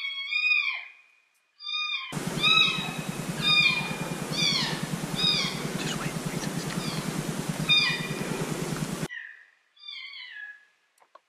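A string of high, cat-like mewing calls, each sliding down in pitch, about one or two a second. From about two seconds in until about nine seconds a steady rushing hiss runs under them.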